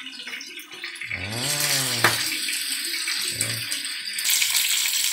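Steady hiss of pork skewers frying in shallow fat in a pan. It swells about a second in and grows louder again near the end. Two short wordless vocal sounds sit over it.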